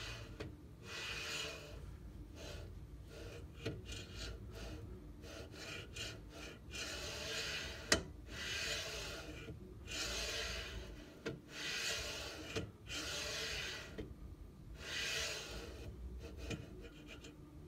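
3D printer gantry pushed back and forth by hand along its frame: repeated scraping, rubbing slides of about a second each, with a sharp click about halfway through. The gantry rubs against the aluminium extrusion frame at some points of its travel.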